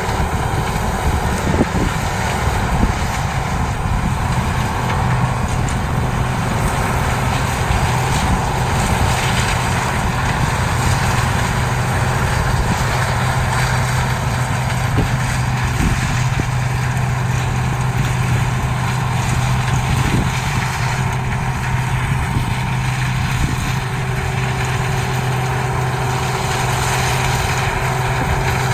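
CLAAS Mega 204 combine harvester running steadily, its diesel engine and machinery giving a continuous mechanical noise, with a steady low hum settling in about five seconds in.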